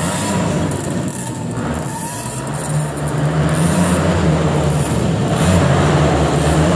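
Small youth motocross bike engine revving and easing off as it rides the dirt track, its pitch rising and falling. It fades for a couple of seconds about a second in and comes back louder from about three seconds in. Heard across a large indoor hall.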